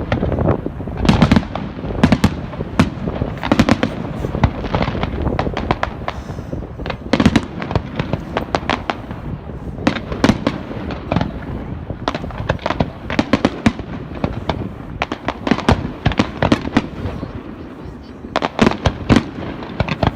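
Fireworks display: a rapid, irregular string of sharp bangs and crackles, several a second, over a continuous rumble.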